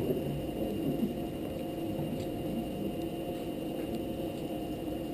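Steady low rumble of background noise, with a few faint small clicks as .22 LR cartridges are pressed into a ten-round rifle magazine.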